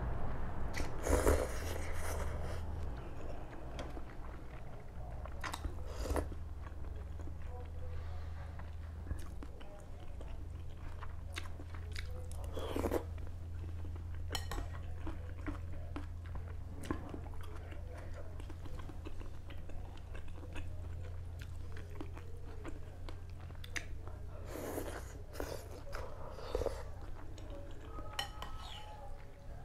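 A person eating Thai boat noodles close to the microphone: slurping noodles and chewing, with scattered louder slurps, the strongest about a second in and again near the end. A steady low hum runs underneath.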